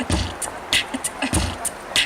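Live band music carried by a drum kit playing a steady beat: kick drum thumps and snare and cymbal hits about every 0.6 seconds, with little else.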